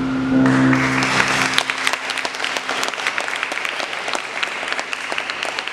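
Audience applauding at the end of a performance, while the grand piano's final chord rings on and fades away over the first two to three seconds.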